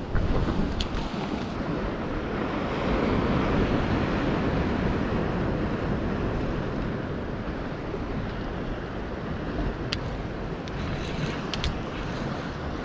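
Surf washing against the boulders of a rock jetty, with wind buffeting the microphone, and a few light clicks late on.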